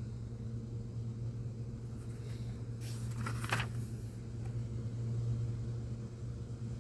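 Steady low background hum, with a brief soft rustle about three seconds in.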